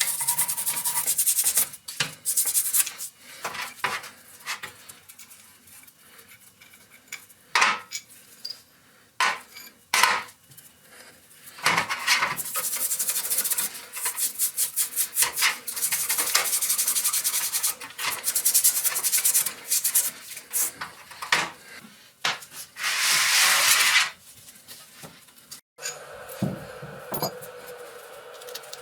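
Rusty metal being worked by hand: scraping and rubbing strokes, in quick rhythmic runs, broken by sharp metallic clicks and knocks as parts are handled. A steady hum starts near the end.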